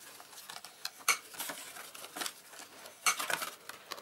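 Stiff white cardstock being folded and pressed by hand along its scored fold lines as it is shaped into a box, giving rustles and sharp clicks of the card. The loudest clicks come about a second in and again around three seconds.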